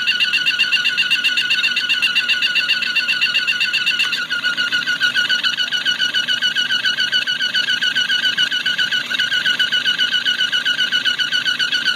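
Chevrolet Aveo T250 engine running with a loud, high-pitched whistle in several stacked tones that warble rapidly and evenly. The owner is tracing the whistle and suspects the variable cam phasers.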